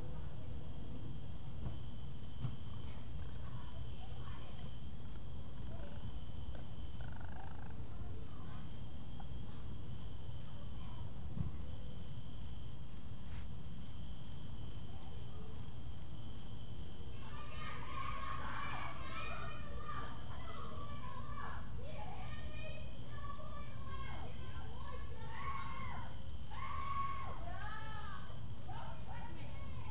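Crickets chirping steadily in a regular high pulse about twice a second over a low steady hum. From a little past the middle, a run of short squeaky chittering calls that rise and fall in pitch joins in.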